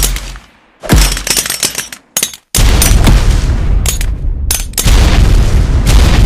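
Makeshift frag grenade explosion sound effect: a sharp blast at the start and another about a second in, each dying away. From about two and a half seconds in comes a loud, sustained blast with several sharp cracks layered in.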